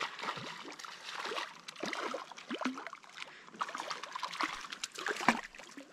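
A hooked fish thrashing at the surface as it is brought to hand beside a float tube: irregular splashes and drips of water, with one sharp splash about five seconds in.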